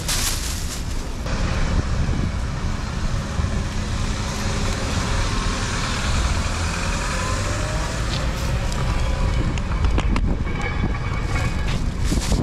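Road traffic on a city street with wind rumbling on the microphone from riding a bicycle. A plastic bag rustles for about the first second.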